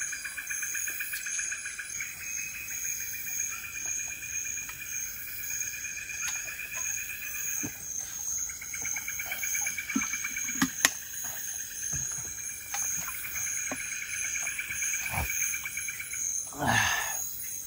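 A chorus of insects, crickets among them, trilling in steady pulsing layers that drop out briefly about eight seconds in, with a few sharp clicks, the loudest about eleven seconds in. A brief louder sound near the end.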